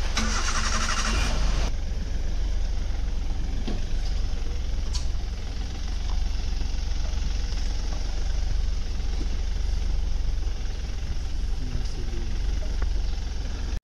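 Safari vehicle engine running with a steady low rumble. A short hiss comes in near the start and lasts about a second and a half.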